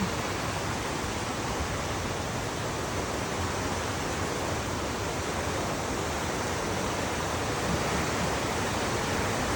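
Steady rush of flowing river water, an even, unbroken hiss.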